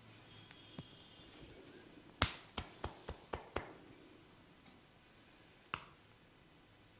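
Sharp snapping cracks from a barber's hands during a head massage. One loud crack is followed by five quicker ones at about four a second, then one more a couple of seconds later.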